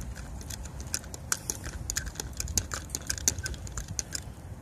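A spoon stirring ramen seasoning into hot water in small cups, clicking and tapping against the cup many times in a quick, irregular run, over a low rumble of wind.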